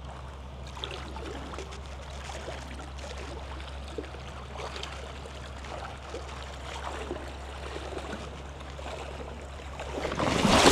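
Creek water trickling and running over rocks, a steady wash with faint scattered small ticks. A much louder rush of noise rises near the end.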